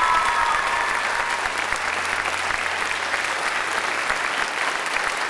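Audience applauding steadily, with a voice whooping that fades out about half a second in.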